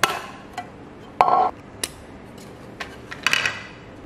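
A clear hard-plastic display case and its base being handled and pulled apart. There is a sharp click at the start, a short rubbing squeak about a second in, single clicks, and a cluster of clicks and rattles near the end.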